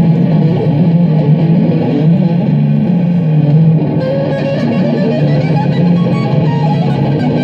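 Electric guitar played in dense, improvised clusters of notes. About four seconds in, the texture brightens as higher notes come in.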